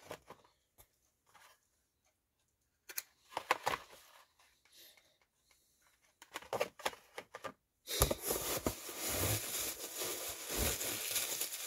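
A few light knocks and rustles of a cardboard mailer box being handled. Then, from about two-thirds of the way in, continuous crinkling of plastic bubble wrap as it is pulled out of the box.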